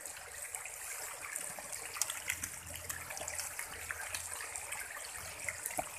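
Water pouring steadily into a round tarpaulin pond from an inlet pipe, mixed with many small, quick splashes and slurps of densely stocked catfish feeding at the surface.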